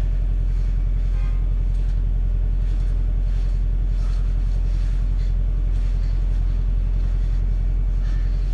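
Diesel engine of a New Routemaster hybrid double-decker bus running steadily while the bus stands still. It is a loud, low, even throb heard from inside the bus.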